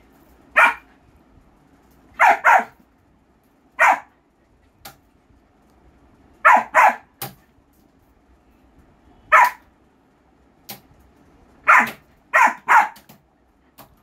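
German Shepherd puppy barking: about ten short, sharp barks, some in quick pairs, with pauses of a second or more between them.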